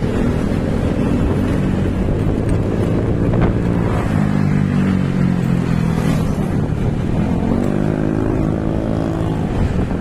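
Road vehicle engine running while driving, its pitch climbing twice as it accelerates, over a steady low rumble.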